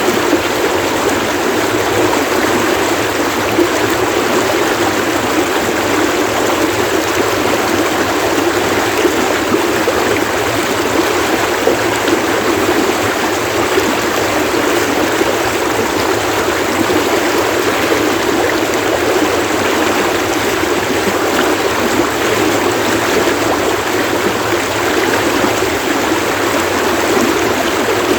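Flowing stream water splashing and babbling, a steady, unbroken rush.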